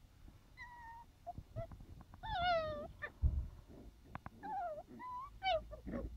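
Sealyham Terrier puppies yelping and whining as they play-fight: about five short high-pitched cries, the longest about two seconds in and sliding down in pitch. There is a low thump about three seconds in.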